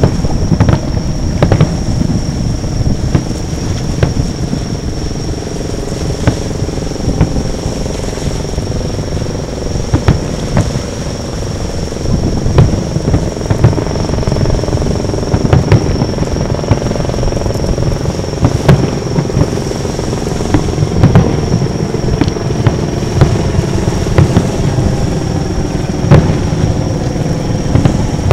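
Aerial fireworks shells bursting, a string of bangs at irregular intervals over a continuous low rumble.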